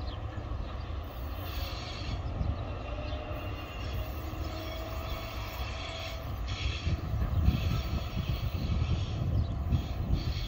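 Low, steady rumble of a log freight train moving away into the distance.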